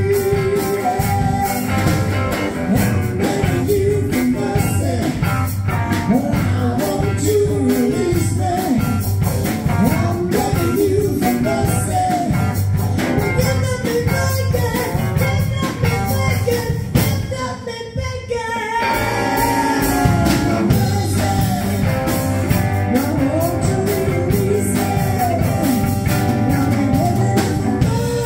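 Live rock band: a woman singing lead over electric guitars and drums with a steady beat. The music drops back briefly about two-thirds of the way through, then comes back in full.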